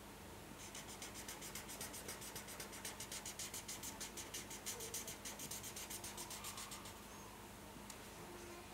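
Red felt-tip marker scribbling on paper, filling in a coloured area with quick back-and-forth strokes, several a second, starting about half a second in and stopping near the end.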